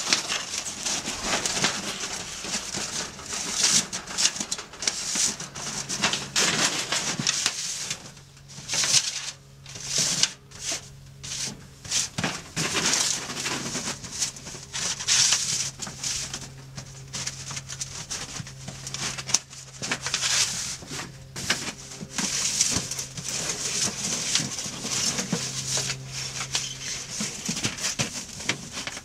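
Hands working a thin rolled titanium stove pipe, sliding its metal rings along it: irregular scraping, crinkling of the thin sheet and clicks, mixed with rustling of dry leaves. A steady low hum runs underneath from about five seconds in.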